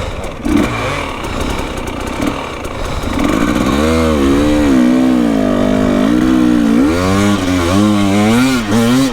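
Enduro dirt bike engine revving hard. For the first three seconds it runs lower and rougher, then its pitch rises and falls in quick surges under the throttle.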